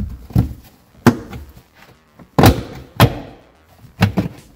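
Plastic D-pillar trim panel of a VW Touareg being pried and pulled off by hand: a string of about seven sharp knocks and clacks as the panel comes free of its mounts.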